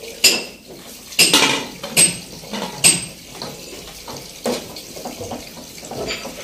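Metal pressure cooker lid clanking against the pot as it is fitted and closed: about five sharp metal clanks in the first three seconds, one more about four and a half seconds in, then softer handling knocks.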